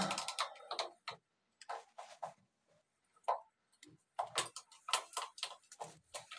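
Irregular light clicks and taps of hard plastic as a part is worked loose at the hinge of a Super Asia washing machine's lid. There is a quiet pause in the middle.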